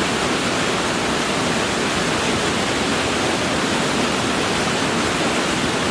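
Fast-flowing creek water rushing, a steady loud hiss with no breaks.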